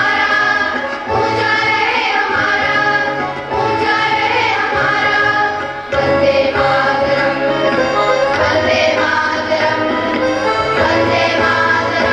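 A song playing: singing over instrumental accompaniment with a steady, repeating bass line.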